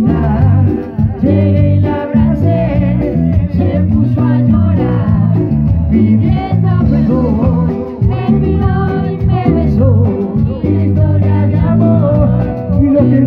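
Latin-style band music with a singing voice, guitar and a strong stepping bass line, playing loud and steady throughout.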